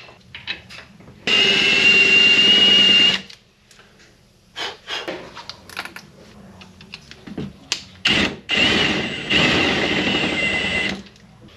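Cordless drill boring into a metal block-off plate clamped in a bench vise, enlarging a pilot hole to 21/64 inch ahead of tapping it for a pipe fitting. There are two runs of steady motor whine, one starting about a second in and one near the end, with light clicks of handling between them.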